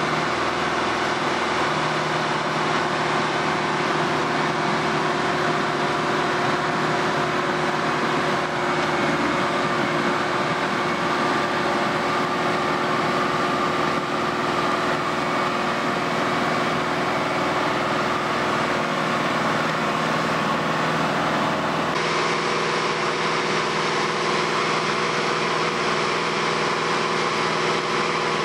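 Diesel engine of an Atlas 1604 wheeled excavator running steadily, with a constant hum and hiss; the sound shifts slightly about three-quarters of the way through.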